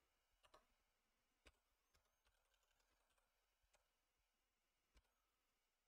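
Near silence with a few faint computer keyboard keystrokes, spaced irregularly, as code is typed.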